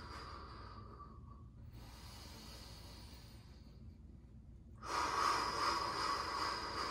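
A man breathing audibly while holding a kneeling toe-squat yoga pose: one breath fades out in the first second or two, then a quieter stretch, then a louder long breath begins about five seconds in.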